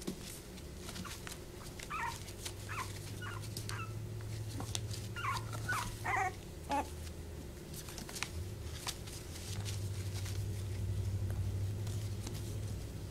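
Young puppies whimpering and yipping in short, high calls, a string of them between about two and seven seconds in, with scattered clicks and scratches as they scramble in a plastic tub.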